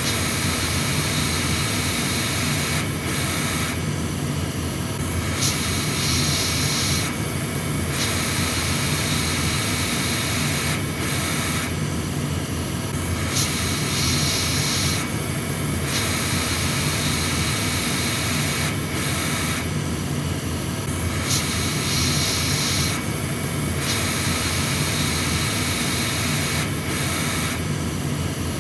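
Steady rushing of a hot air rework station's blower held over a circuit board, with the hiss shifting in tone every second or two.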